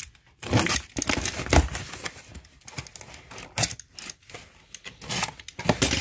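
A cardboard box being opened by hand: a utility knife slits the packing tape, the flaps are pulled back and the plastic snack pouches inside crinkle, in a run of irregular scrapes and rustles.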